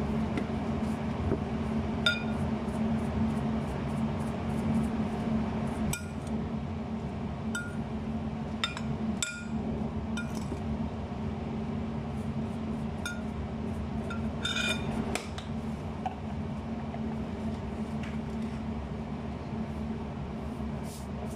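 A glass mixing bowl clinking now and then, a dozen or so light knocks scattered through, each with a short ring, over a steady low hum.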